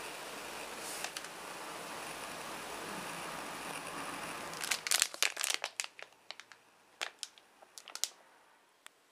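Plastic packaging crinkling as it is handled, in a run of sharp crackles from about halfway through. Before that, a steady hiss.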